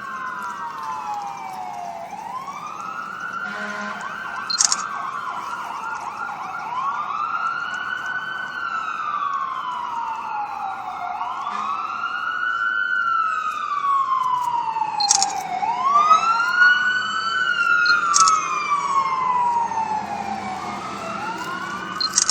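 Emergency vehicle sirens wailing, each slowly rising and falling about every four seconds, with two sirens overlapping out of step. They grow louder past the middle, then ease off a little. A few short sharp clicks sound over them.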